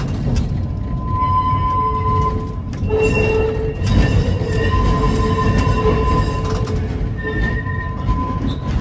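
A 1911 electric tram running on street rails, heard from inside the car: a steady rumble of the wheels and running gear. Over it, several high steady squealing tones come and go, strongest from about three seconds in.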